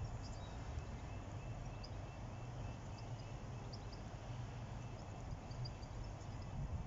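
Level crossing warning alarm pulsing faintly and regularly, a few beeps a second, over a steady low rumble, with scattered bird chirps.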